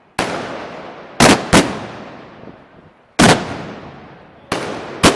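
Six loud gunpowder bangs at an uneven pace, two of them close together, each ringing on in a long echo that dies away.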